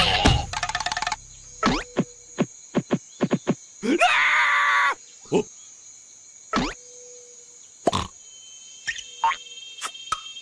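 Cartoon sound track of comic vocal noises from the animated larva characters: a loud fluttering cry at the start, a quick string of short squeaks and yelps, and a drawn-out exclamation about four seconds in.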